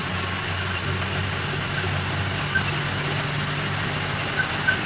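Ashok Leyland Ecomet truck's diesel engine running steadily while driving, with road noise, heard from inside the cab, and a few light clicks.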